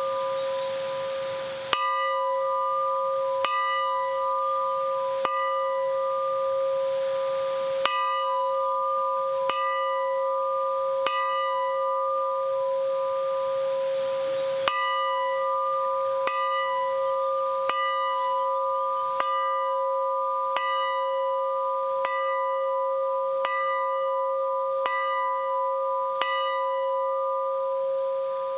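Bell-like metal tones struck again about every one and a half seconds over a steady ringing that never dies away.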